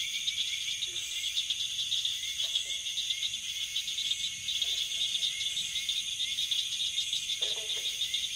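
Steady chorus of insects, likely crickets, chirping in a fast high-pitched pulse, with a few faint lower calls now and then.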